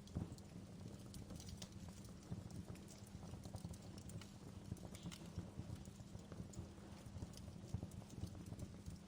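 Wood fire crackling in an indoor fireplace: irregular small pops and snaps over a steady low rumble of the burning fire.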